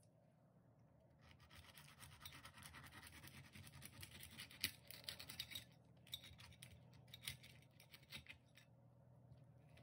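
Knife sawing through the crisp toasted crust of a bread wrap: a run of crackling scratches, loudest in the middle and thinning out near the end.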